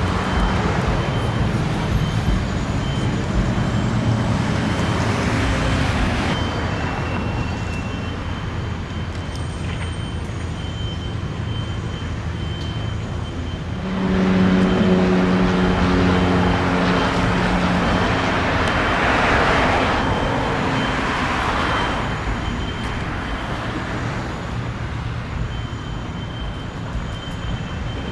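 Road traffic passing steadily, vehicles swelling and fading one after another. About halfway through a heavier vehicle's engine hum comes in close for several seconds.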